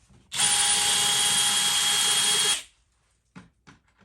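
Power drill with an 11/64-inch bit boring a pilot hole for a lag screw into a wall stud, running at a steady whine for about two seconds and then stopping, followed by a few light clicks.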